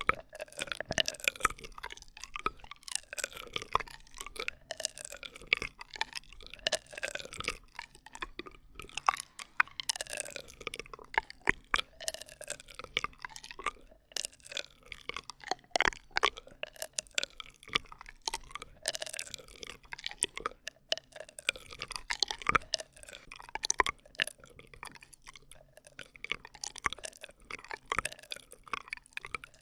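Plastic drinking straws rubbed, bent and squeezed close to the microphone: squeaky gliding tones over a steady run of quick crackling clicks.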